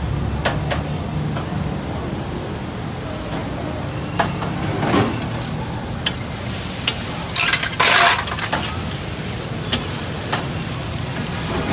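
Liver pieces frying on a large flat metal tawa, sizzling, with a metal spatula clinking and scraping against the pan at irregular moments and a quick cluster of clanks about seven to eight seconds in.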